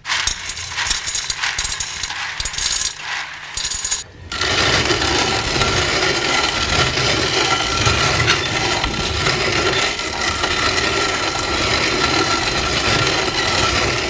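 A hand-cranked Corona cast-iron grain mill grinding dried corn kernels into cornmeal. It starts with uneven crackling for about four seconds, then settles into a steady grinding as the crank turns.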